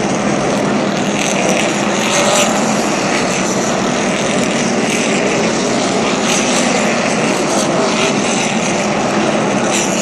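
A field of NASCAR Cup stock cars' V8 engines running together at pace-lap speed before the green flag: a loud, steady drone with cars swelling louder as they pass one after another.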